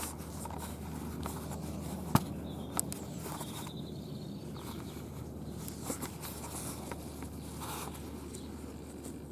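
Foxes feeding on pulled pork: scattered small rustles and scrapes of chewing and moving about, with a sharp click about two seconds in and another soon after, over a steady low hum.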